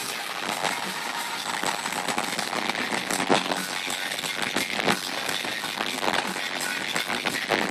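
A loud arena concert picked up by a phone microphone and overloaded, so crowd and sound system blur into a steady distorted din. Short sharp pops are scattered through it.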